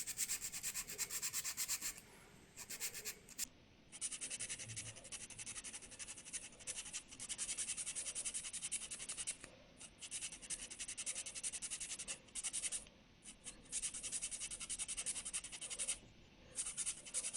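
600-grit sandpaper rubbing back and forth over a 3D-printed PETG part in quick strokes, in runs of a second or two broken by brief pauses.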